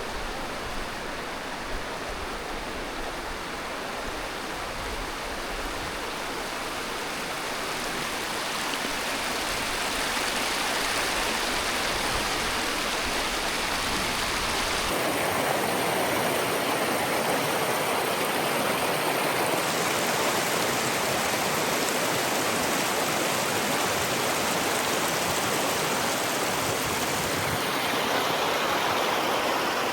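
Rushing water flowing over rock, a steady rush. About halfway through the sound changes suddenly and the low rumble drops out.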